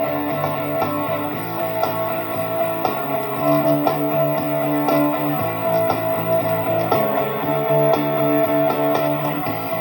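Electric guitar phrase repeating from a looper, played through a home-built guitar amplifier with reverb: plucked notes and held chords ringing at a steady, fairly loud level.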